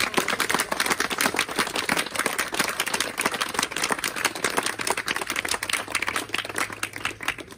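Small crowd applauding: dense, irregular hand clapping that dies away near the end.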